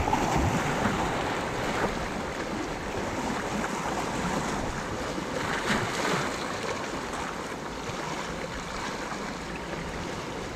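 Small sea waves breaking and washing over shore rocks, swelling near the start and again around five to six seconds in, with wind buffeting the microphone.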